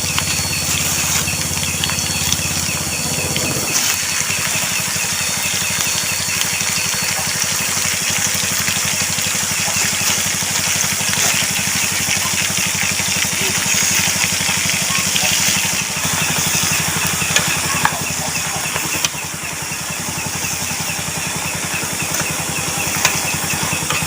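Fish frying in hot oil, a steady sizzle with small crackles.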